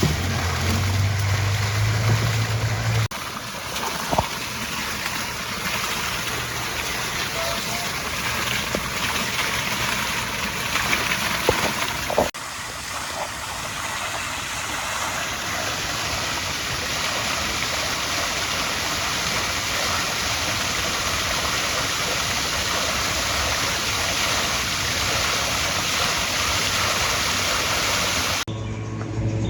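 Steady rush of storm runoff water pouring and gurgling into the lake from a swollen stream or drainage channel after heavy rain.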